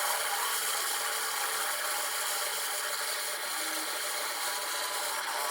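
Wood lathe running, with a tool scraping steadily against the spinning wood.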